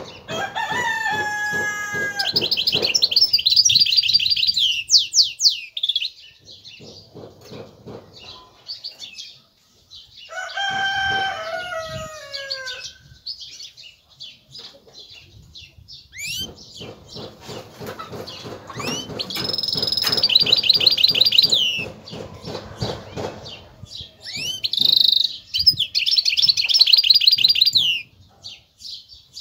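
Caged goldfinch hybrid (a mule) singing: four bursts of song separated by short pauses, with fast high trills and a few lower, falling whistled notes.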